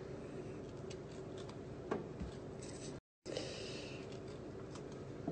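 Faint clicks and scrapes of a small kitchen knife cutting the stem end out of a whole orange held in the hand, over a steady low room hum; the sound drops out completely for a moment about three seconds in.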